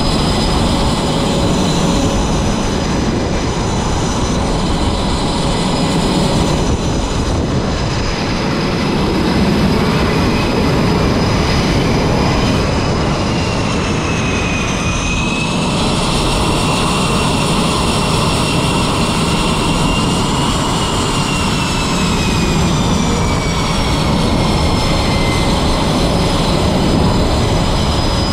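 F/A-18 fighter jet engines running at high power on a carrier flight deck as a jet is catapulted off and the next one moves onto the catapult. A loud, continuous jet noise with a high turbine whine that glides down and back up around the middle and again near the end.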